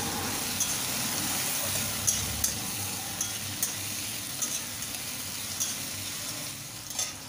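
Sliced onions sizzling in mustard oil in a kadai, stirred with a metal spatula that scrapes and taps against the pan every second or so.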